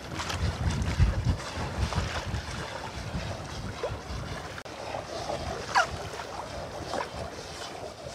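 Wind buffeting the microphone over water washing against a boat at sea, gustiest in the first few seconds. A short falling squeak comes about six seconds in.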